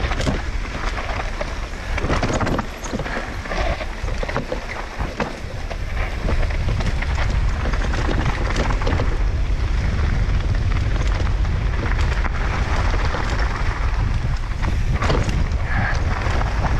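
Wind rushing over the microphone of an enduro mountain bike riding fast downhill, with scattered knocks and rattles from the bike over rough ground.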